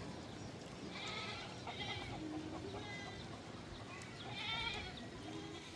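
Goats or sheep bleating: several short, wavering calls, the loudest about four and a half seconds in.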